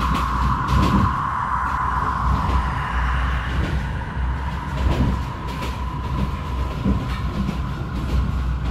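H0-scale model M41 diesel locomotive's sound decoder playing a steady diesel engine sound through its small speaker as it passes, fading after a couple of seconds. Under it, the model coaches roll along the track with a low rumble and a few wheel clicks.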